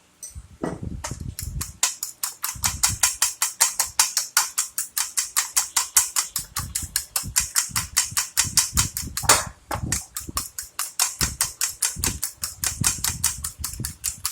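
Eggs being beaten in a bowl: a quick, even clicking of the utensil against the bowl, about five strokes a second, with a short break about two-thirds of the way through.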